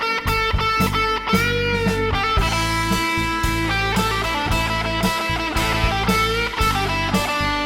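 Electric guitar playing a lead line of long sustained notes with string bends, over bass and a steady drum beat of about two strokes a second.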